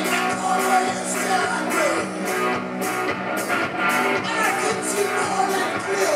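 Live rock and roll: a man singing while playing drums, with guitar, over a steady beat of cymbal strokes about twice a second.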